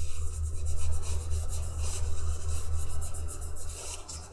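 Powder eyeshadow being rubbed back and forth across the waxy surface of an encaustic painting, a continuous scratchy rub, over a steady low hum.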